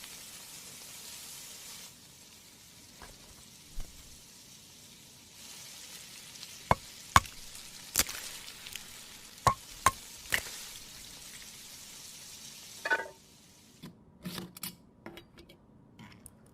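Breakfast-cooking sounds: food sizzling in a pan with a steady hiss, joined by a string of sharp clinks from about halfway in. The hiss stops near the end, leaving a few light taps.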